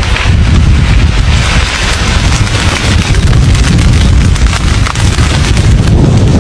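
Volcanic eruption: a loud, continuous low rumble with dense crackling over it, with no pause.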